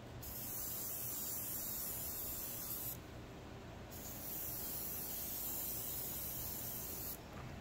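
Airbrush spraying a light coat of thin matte clear varnish: two hissing passes of about three seconds each, with a short pause between them.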